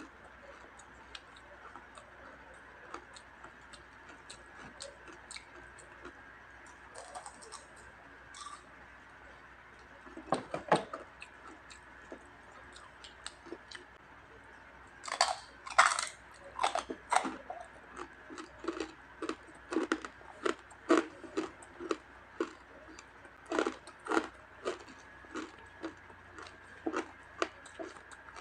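A person biting into and chewing crispy fried skin (chicharon): soft mouth sounds at first, then loud crunches about halfway through, followed by steady crunchy chewing about twice a second.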